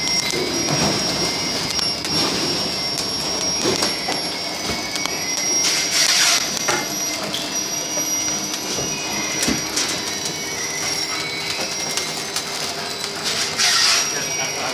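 Detergent soap bar packing machine running: a steady mechanical clatter with a thin high whine, and two louder surges of noise, about six seconds in and near the end.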